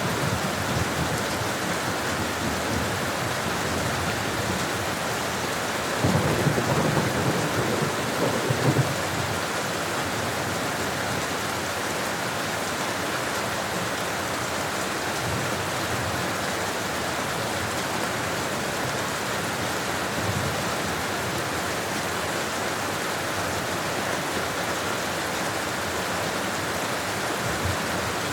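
Steady rain falling, an even hiss throughout, with a low rumble of thunder about six seconds in that lasts about three seconds.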